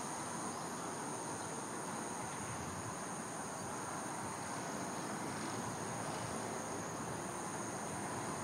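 Insects trilling steadily in two high unbroken tones, over a steady low background hum.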